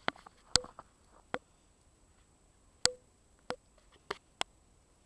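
A handful of short, sharp clicks at irregular intervals, about seven in five seconds, over a faint quiet background.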